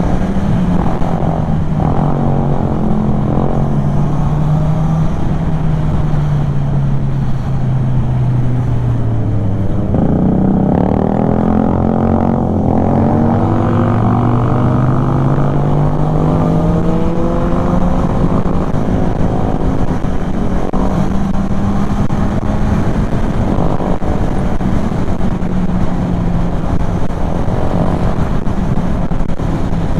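Kymco Xciting 400 maxi-scooter's single-cylinder engine running while under way, with wind and road noise. Its pitch falls as it slows to a low point about ten seconds in, then climbs again as it speeds up, and holds fairly steady after that.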